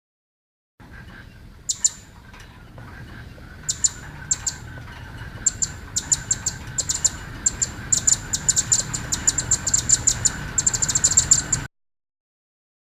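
Recorded bird chirps, short and high, sparse at first and coming faster and faster toward the end, over a steady background hiss. The recording starts and cuts off abruptly.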